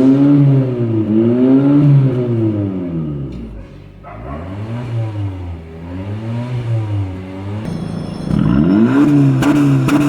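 Honda Civic engine revved repeatedly through an aftermarket GFC catback exhaust with an electronic valve, in quick blips about once a second. The revs drop quieter a few seconds in and come back louder near the end.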